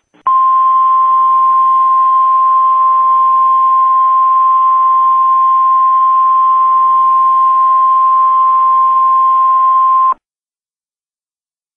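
Emergency Alert System-style attention tone: one loud, steady high-pitched tone with a faint hiss under it, held for about ten seconds and then cut off abruptly.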